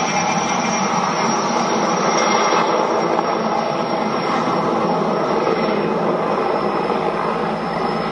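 Sikorsky Skycrane helicopter's twin turbines and main rotor running in flight overhead: a loud, steady rush of rotor and engine noise with a thin high turbine whine over it.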